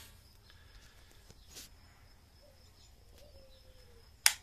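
Quiet outdoor background with faint bird or insect calls. A sharp click near the end as the digital multimeter's rotary dial is turned.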